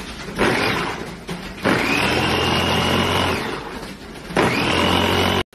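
Gaabor MG-15M 300 W electric food chopper running in three pulses, its motor whine rising in pitch as each pulse starts, the blades chopping the food in its bowl. The middle pulse is the longest, nearly two seconds.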